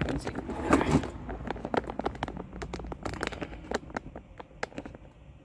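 Irregular metal clicks and clinks of a wrench being worked on the lower nut of a sway bar end link, busiest in the first second and thinning out after about four seconds.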